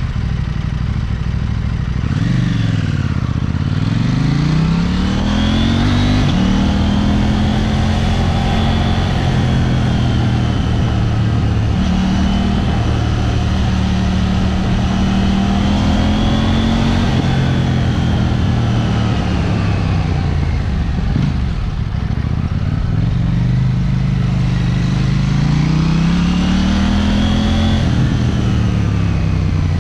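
KTM 790 Duke's parallel-twin engine pulling away from a standstill about two seconds in and revving up through the gears, then running steadily. It eases off about two-thirds of the way through and revs up once more near the end, over wind and road noise.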